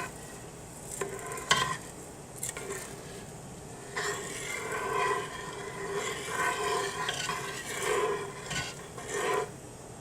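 A utensil stirring uncooked rice in a pot of water, scraping against the pot in a run of repeated strokes from a few seconds in, with a sharp knock about one and a half seconds in.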